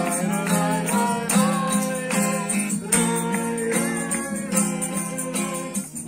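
Acoustic guitar strummed in a steady rhythm while a group of voices sings a song along with it.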